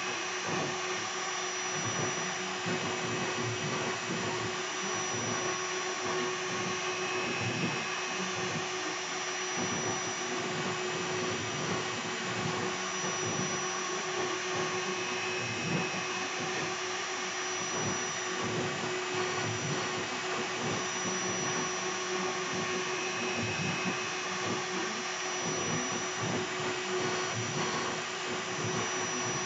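CNC router carving with a 2.2 kW air-cooled spindle: a steady whine over a rushing noise, with a higher tone that comes and goes every few seconds.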